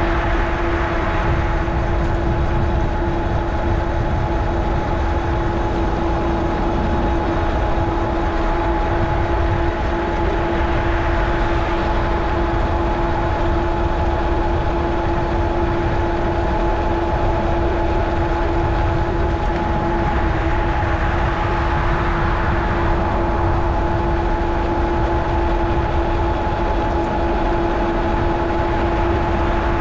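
Wind rushing over a GoPro microphone and tyre noise from a moving bicycle, a dense low rumble, with a steady hum held at one pitch.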